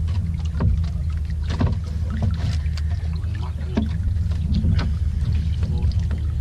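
Small fishing boat's engine running steadily, a low hum, with scattered short clicks and knocks over it.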